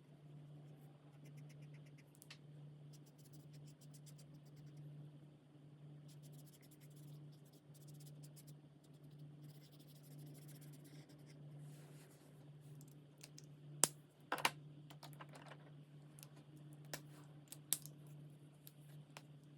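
Alcohol marker nibs rubbing on coloring book paper in runs of quick short strokes, faint, over a steady low hum. A few sharp clicks come about two-thirds of the way through.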